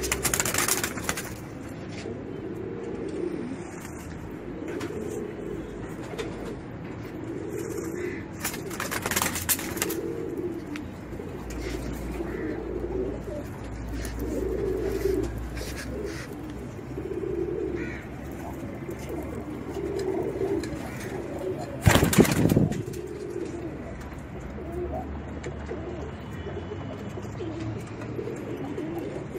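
Teddy pigeons cooing over and over, a low warbling coo every couple of seconds. There is a brief loud rustle about three quarters of the way through.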